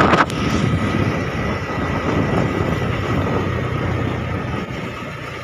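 Apache motorcycle engine running at road speed, with wind buffeting the microphone. There is a brief sharp sound right at the start, and the engine slowly gets quieter through the rest.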